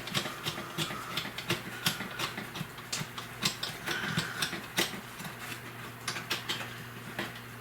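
Quick, irregular clicks and ticks of a small hand tool at work on the terminal screws of a 12-volt outlet, several a second, over a low steady hum.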